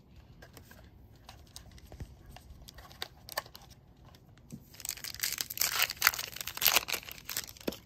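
A few faint taps and rustles of cards being handled, then about five seconds in the foil wrapper of a football card pack crinkles and tears as it is ripped open by hand, a dense crackling for about three seconds.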